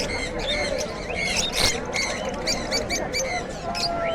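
Many caged small birds chirping together, with short, high calls repeating rapidly and overlapping.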